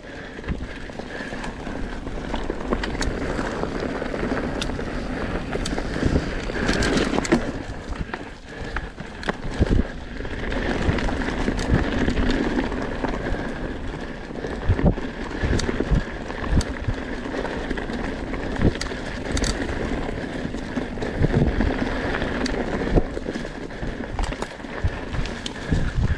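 Electric mountain bike riding fast down a dirt trail covered in leaves: tyres rolling over dirt and leaves, with constant rattling and frequent sharp knocks as it hits bumps, and wind on the microphone.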